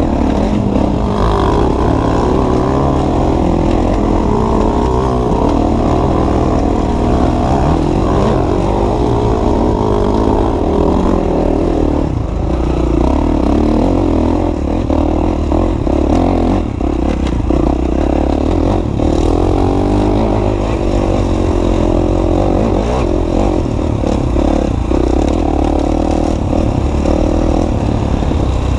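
Dirt bike engine heard from on board, revving up and down as the rider works the throttle along a rough trail, with occasional knocks and rattles from the bike over bumps.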